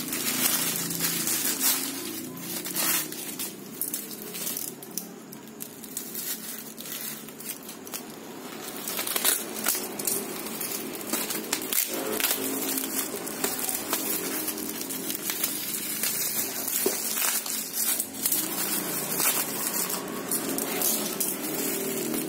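Plastic packaging crinkling and rustling as it is handled: a clear plastic bag is pulled open and black plastic wrap is unwound from a boxed-up concrete hole saw bit by hand, with irregular crackles throughout.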